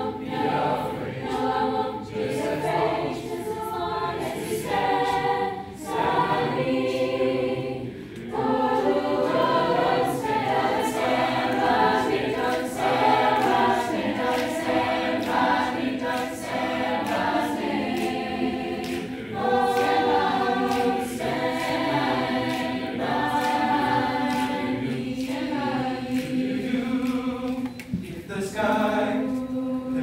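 A mixed-voice youth choir singing a cappella in harmony, in sustained phrases with short breaks between them.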